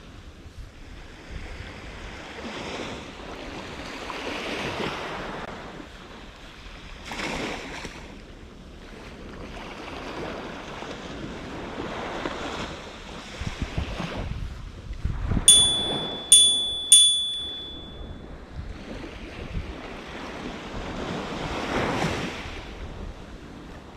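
Small waves breaking and washing up a sandy shore, swelling every few seconds, with wind noise on the microphone. About two-thirds of the way through come three sharp clicks in quick succession, each with a brief high ringing tone.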